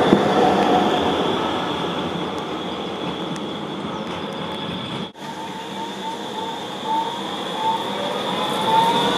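Light-rail trams running on street track. One rolls past close by and fades, then after a cut another takes a curve, its wheels giving a run of short rising squeals that grow louder toward the end.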